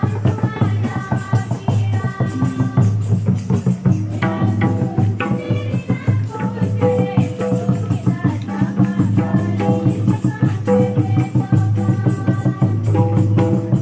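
Santali folk procession music: a barrel drum beaten in a quick, steady rhythm with a rattling, shaker-like beat, and a held melody line over it.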